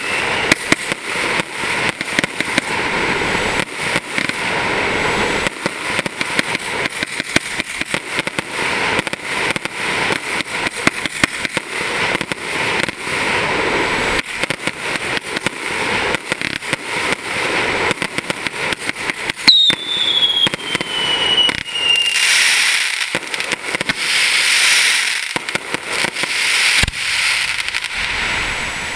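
Aerial fireworks display: a dense, rapid run of bangs and crackling. A falling whistle comes about twenty seconds in, followed by a louder stretch of hissing and crackle.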